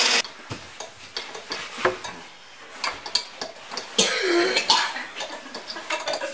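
Countertop blender on its ice-crush setting stops just after the start. Then come scattered light clicks and taps of the blender jar and lid being handled, and a short cough-like burst about four seconds in.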